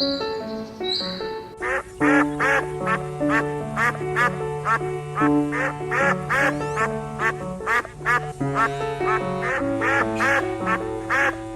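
Background music: a quick, even run of short, bright repeated notes over held bass notes.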